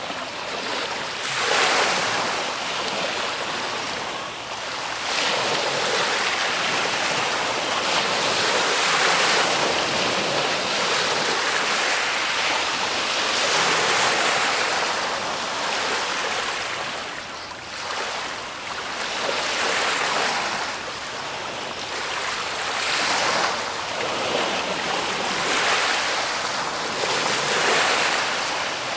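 Ocean surf: waves breaking and washing in, a rushing hiss that swells and ebbs every few seconds.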